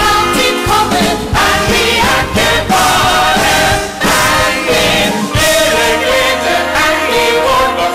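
Musical-theatre ensemble singing in chorus over an orchestral accompaniment.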